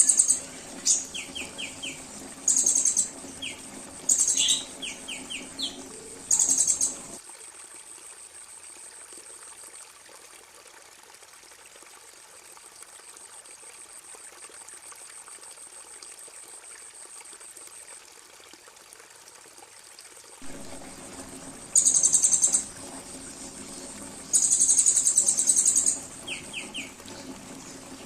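Recorded songbird calls played as a bird-training track: short bursts of very high, rapid buzzy trills, several in the first seven seconds and again from about twenty-two seconds in, with a few short chirps between them, over a faint steady background hiss. In the middle the trills stop and only a thin hiss remains for about thirteen seconds.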